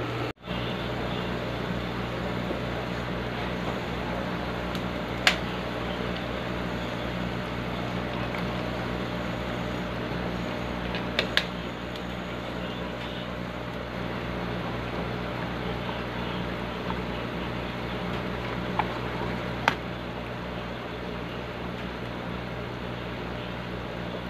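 Steady electric hum of an aquarium air pump running, with a few short sharp clicks from handling the airline tubing.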